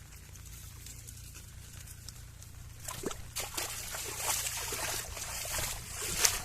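Water sloshing and splashing, starting about halfway through, with many small clicks and a sharp knock near the end.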